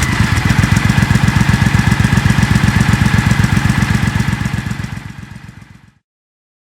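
Triumph Thunderbird 1600's parallel-twin engine idling with an even, lumpy beat just after a rev. It fades out about four and a half seconds in and is gone by six.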